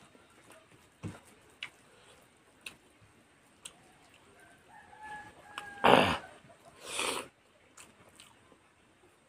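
Soft clicks and smacks of hand-eating and chewing, with a loud, harsh animal call about six seconds in that sounds twice, about a second apart.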